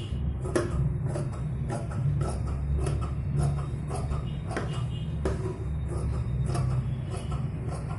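Scissors snipping through fabric, a steady run of cuts about two to three a second, over a low steady hum.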